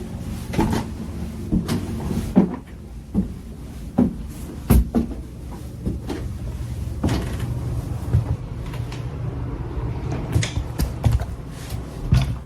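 A series of irregular knocks and bangs, like doors being opened and shut, over a steady low hum.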